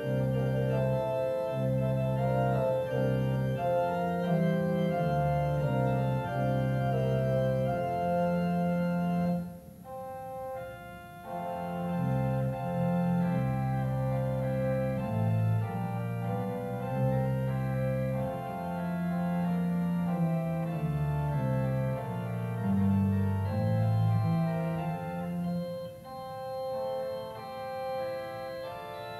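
Church organ playing a fanfare in full sustained chords over a moving pedal bass line. About ten seconds in it drops briefly to a softer passage, then returns to full sound.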